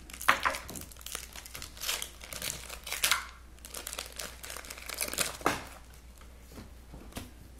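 A Pokémon trading card booster pack's foil wrapper being torn open and crinkled by hand, in irregular crackling bursts, with a few louder crinkles about two, three and five and a half seconds in.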